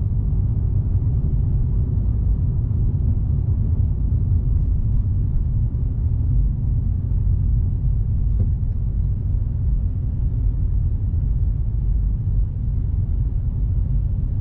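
Steady low rumble of a car driving, heard inside the cabin: road and engine noise with no change in pace.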